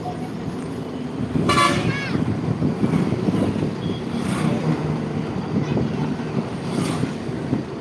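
Steady road traffic rumble with a short vehicle horn toot about a second and a half in.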